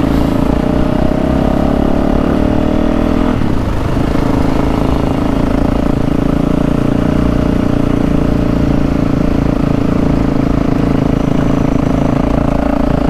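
Dirt bike engine running at steady riding revs, with a brief break in the note about three and a half seconds in before it settles again. Wind rumbles on the microphone throughout.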